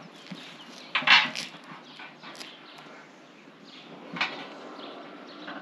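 Rubber rubbing and scraping as an inner tube is worked by hand inside a large agricultural tyre, with a loud scuff about a second in and a smaller one about four seconds in.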